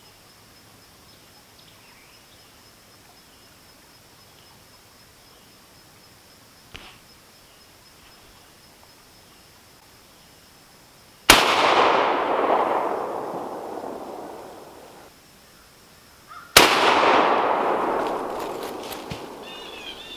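Two gunshots about five seconds apart, each followed by a long echo that rolls through the woods and fades over several seconds. Both shots bring down squirrels from the same tree.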